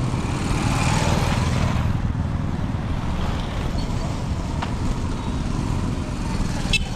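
Road traffic: a steady low rumble of passing vehicles, with a louder swell in the first two seconds as one vehicle goes by.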